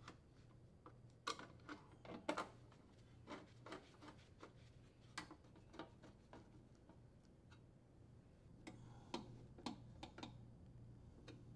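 Faint, scattered clicks and ticks of a hand Phillips screwdriver turning screws into a sheet-metal junction box cover, with small metal taps as the box is seated, over a faint low hum.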